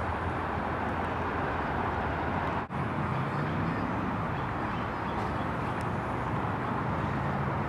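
Steady outdoor background hum of distant traffic, with one momentary dropout about a third of the way in.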